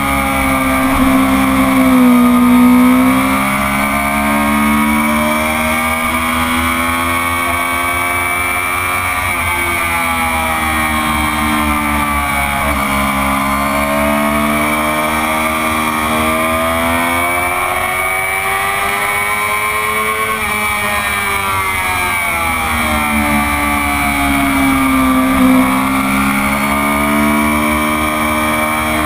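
Stock Honda CBR600RR inline-four engine heard from onboard at racing speed, its pitch rising and falling over and over as the rider works the throttle through the corners, over a steady rush of wind noise.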